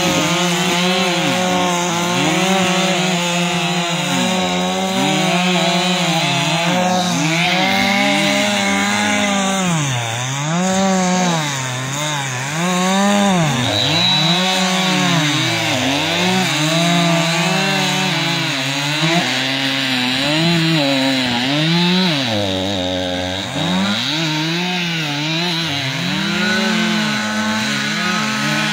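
Two gas chainsaws running at once, cutting into thick river ice; their engine pitch keeps dipping as the chains bog down in the cut and then climbs again, turning steadier near the end.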